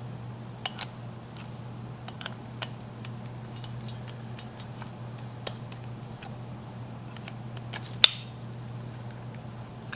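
Small metallic clicks and ticks of lock picks working a doorknob's pin-tumbler lock, with one sharp, louder click about eight seconds in, as the lock is picked open. Under it runs a steady low hum from a furnace blower.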